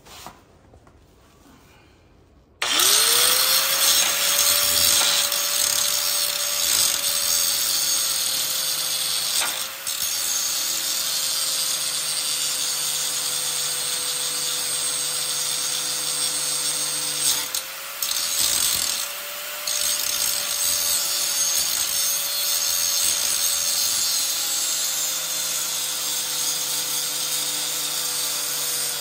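Angle grinder spinning up about two and a half seconds in, its whine rising quickly to a steady pitch, then grinding an old weld with a harsh, continuous hiss. The pitch wavers a little under load and the sound drops briefly a couple of times.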